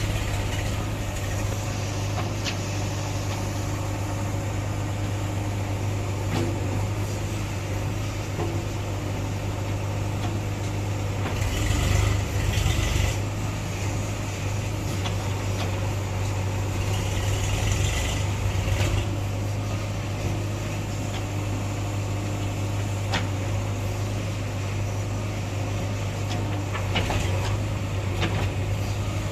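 Diesel engine of a JCB machine running steadily, growing louder twice, about twelve seconds in and again around eighteen seconds, as if revved under load.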